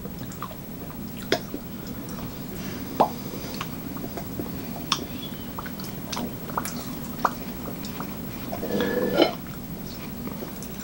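Quiet eating at a table: scattered light clicks and taps of dishes and cutlery, with chewing on watermelon, over a steady low hum. A brief low vocal sound comes near the end.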